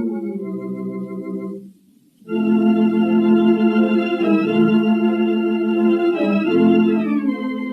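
Wurlitzer theatre organ playing slow, sustained chords with a wavering tone. It breaks off briefly about two seconds in, then comes back with a fuller chord, changes chord twice, and steps down near the end.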